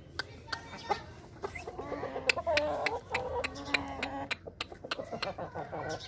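Aseel chickens clucking, with several drawn-out low calls between about one and four and a half seconds in, over a scatter of sharp clicks.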